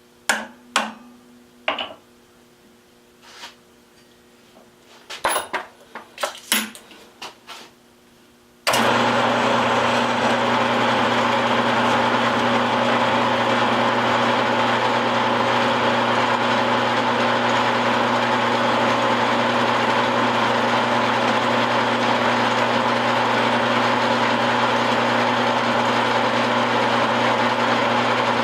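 A handful of separate metal clicks and knocks as parts are handled, then about nine seconds in a milling machine switches on suddenly and runs steadily with a hum and a whirring hiss.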